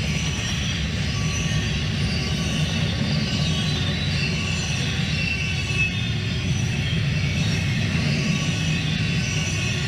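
Double-stack intermodal freight cars rolling past at speed: a steady rumble of steel wheels on the rail, with a thin, wavering high squeal from the wheels over it.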